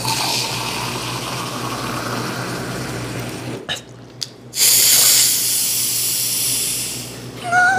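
Beer poured from a large plastic bottle into a glass: a steady splashing pour whose pitch rises as the glass fills. After a short break with a few clicks, a louder hissing, fizzing pour follows for about two seconds as beer is poured straight from the bottle into a mouth.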